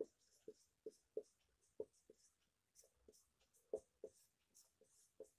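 Whiteboard marker writing on a whiteboard, faint: a quick series of about a dozen short squeaking strokes.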